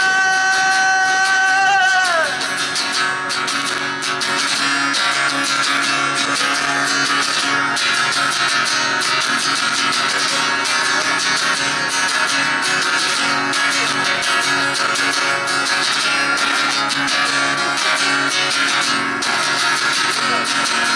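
A man's held sung note that slides down and ends about two seconds in, then an acoustic guitar strummed steadily through an instrumental break in a solo acoustic rock song.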